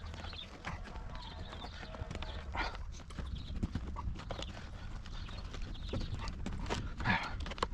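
Irregular clicks, knocks and rustles of hand work on a car seat's suspension and frame, over a low steady hum.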